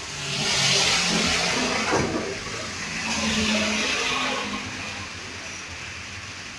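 Heavy rain driven by strong wind, the rushing swelling in two gusts: one peaking about a second in, another around three to four seconds, with a short knock near two seconds.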